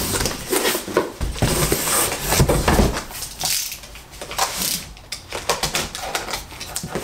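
A cardboard box being handled and opened: irregular scraping, knocking and rustling of cardboard and packing, loudest a few seconds in.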